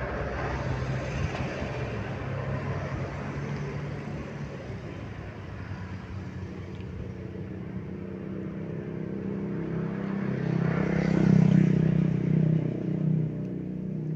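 Engine and road noise of a moving vehicle: a steady low engine hum under a noisy rush. It grows louder about ten seconds in, then eases off near the end.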